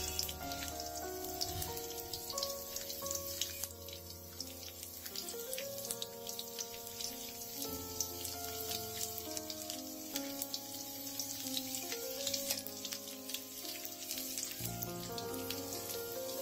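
Chopped garlic sizzling and crackling in hot vegetable oil in a karahi, dense fine crackles throughout, under soft background music.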